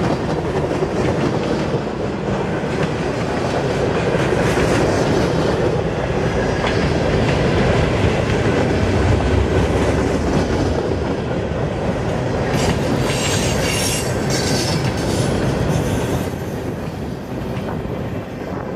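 Freight cars of a CN freight train, centerbeam lumber flatcars among them, rolling past close by: the steady rolling noise of steel wheels on the rails. A stretch of higher-pitched squeal comes about two-thirds of the way through, and the sound eases a little near the end.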